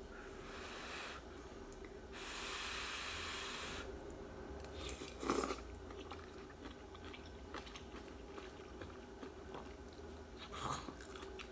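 Person eating vegetable soup with chopsticks: two long breathy hisses in the first four seconds, then soft chewing with small mouth clicks and a brief louder mouth sound a little after five seconds.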